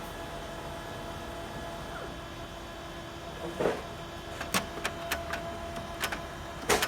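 HP Color LaserJet laser printer running with a steady hum, then, from about three and a half seconds in, a string of sharp plastic clicks and knocks as the printer's parts are handled, the loudest knock near the end.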